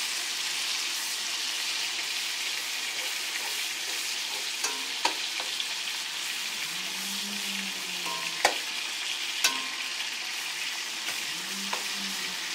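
Chopped bacon sizzling in hot bacon grease in a cast-iron skillet, a steady frying hiss, with a few sharp clicks of tongs against the pan as the pieces are turned.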